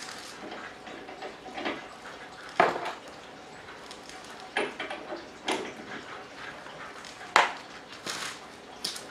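Scattered clinks and knocks of a car jack and a corded impact wrench being handled, with two sharper knocks, one about two and a half seconds in and one about seven seconds in.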